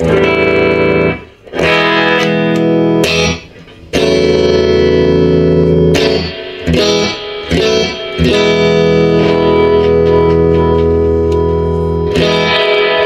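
Electric guitar chords played through an Ampeg R-212R Reverberocket tube amp with its spring reverb on, several chords struck with short gaps and the last one left ringing for several seconds.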